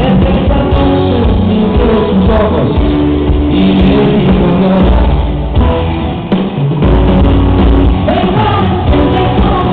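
Loud live pop concert music: a band with drums and bass playing while a singer sings the melody, with the sound cut off in the highs.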